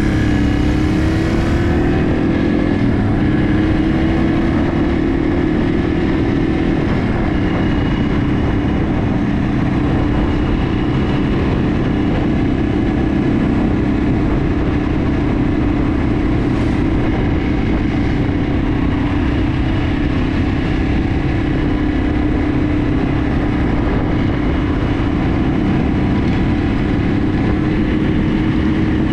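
Yamaha TW200's single-cylinder four-stroke engine running under way at a steady cruise, its pitch rising a little in the first couple of seconds and then holding. Heavy wind rush on the microphone runs underneath.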